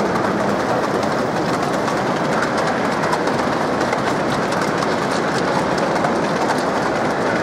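Large-scale model train, a GWR steam locomotive hauling wagons and coaches, rolling steadily along its track: a continuous rolling rattle made up of many small wheel clicks.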